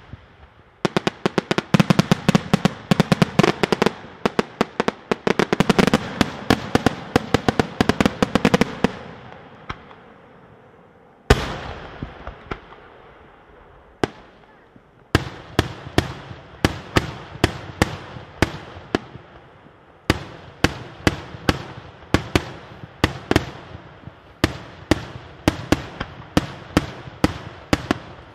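Daytime aerial fireworks shells bursting overhead in sharp bangs: a rapid volley of many reports a second for about eight seconds, a single loud bang near the middle, then a steady run of bangs two or three a second.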